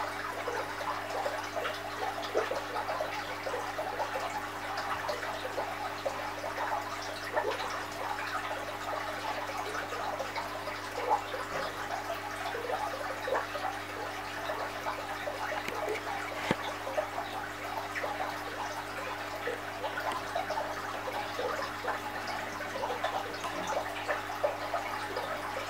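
Aquarium filter running: water trickling and bubbling steadily, with a constant low electrical hum from the pump motor.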